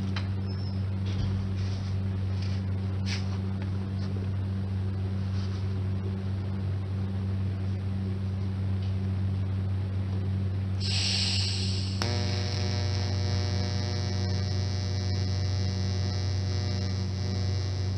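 Steady electrical mains hum, the kind a workshop welding machine's transformer gives off. About eleven seconds in there is a short hiss, then a click, after which a higher buzz with many overtones joins the hum.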